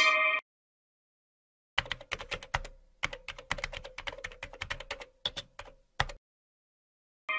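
Typing on a computer keyboard: a quick, uneven run of key clicks starting nearly two seconds in and lasting about four seconds.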